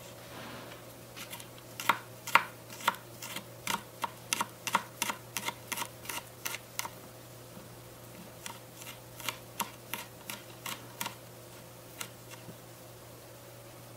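Tiny knife chopping garlic on a small wooden cutting board: a run of sharp taps about three a second, a short pause halfway through, then a second run of taps.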